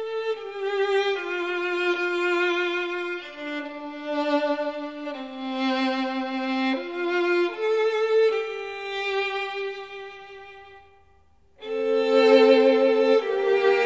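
Slow instrumental music: a violin-like bowed melody of long held notes with vibrato, moving from note to note every second or so. It dies away about ten seconds in and comes back louder about a second and a half later.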